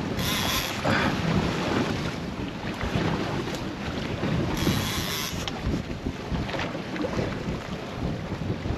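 Wind buffeting the microphone over choppy sea, with water slapping against a small boat. Stronger hissing gusts come near the start and about halfway through.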